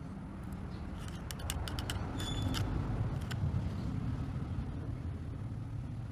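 Low background rumble of road traffic, swelling about halfway through and easing off again, with a cluster of small sharp clicks and one brief high ring between about one and three and a half seconds in.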